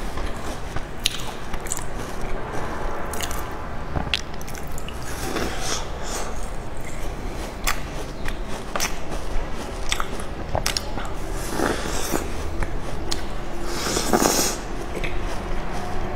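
Biting and chewing a large crumbly cookie that has been dipped in milk: repeated crisp crunches and clicks, close to the microphone.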